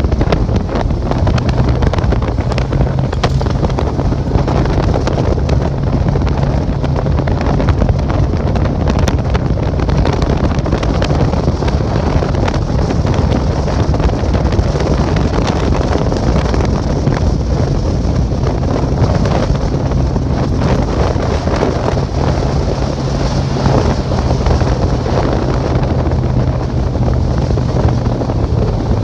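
A boat's outboard motor running steadily at speed, with heavy wind buffeting the microphone.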